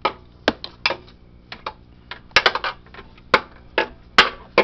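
Socket wrench ratcheting in short, irregular clicks, some in quick clusters, as a clamp bolt on the John Deere JX85 mower's shifter cable bracket is worked loose.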